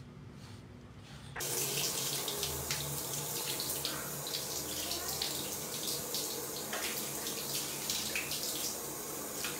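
Water tap running into a sink. It starts abruptly about a second and a half in and runs steadily, with a few scattered knocks and splashes.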